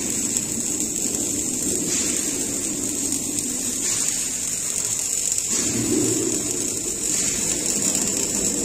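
Electric arc welding on a steel pipe: the arc burns steadily with a continuous high hiss throughout.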